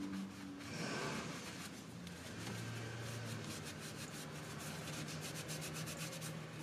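Shop rag rubbing and wiping spilled oil off a freshly installed oil filter and oil pan: soft, repeated scrubbing strokes, cleaning the engine so any leak will show.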